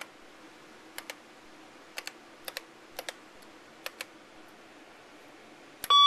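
Keys typed on an IBM 3279 colour terminal's keyboard: several separate keystrokes, each a quick double click, then one more key and a loud beep from the terminal near the end as the entry is rejected as an invalid input device, because it was typed in lowercase.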